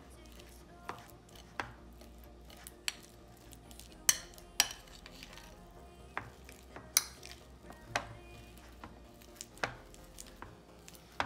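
A utensil clinking and knocking against a bowl while stirring a thick cheese stuffing for jalapeño poppers. There are about ten sharp knocks at uneven intervals, over faint background music.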